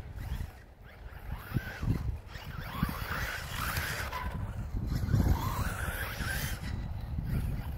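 Xray XB8E 1/8-scale electric buggy's brushless motor whining, rising and falling in pitch as the buggy speeds up and slows through the corners. Irregular low gusts of wind buffet the microphone underneath.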